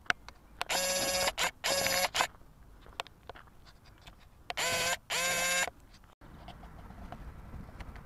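A horn sounding four times, in two pairs of short blasts about half a second each, steady in pitch.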